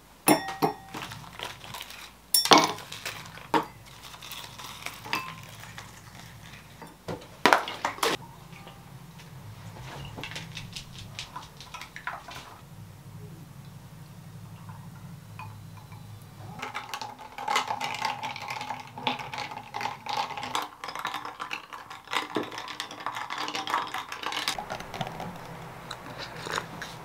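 A metal spoon clinking sharply against a stemmed glass a few times as strawberry preserve is scooped into it, then almond milk poured in from a carton. The last ten seconds hold a denser run of clinks and clatter of spoon and glass.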